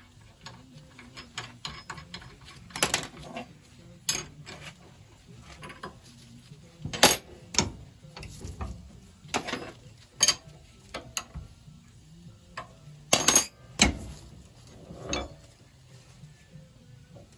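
Small metal pump parts and tools handled on a workbench while the Lister fuel and oil pump is worked on: irregular clicks, clinks and knocks, with a few sharper knocks standing out.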